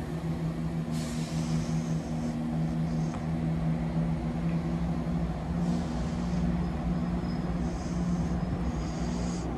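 Class 175 diesel multiple unit pulling away, its diesel engines giving a steady low drone, with a few short bursts of high hiss.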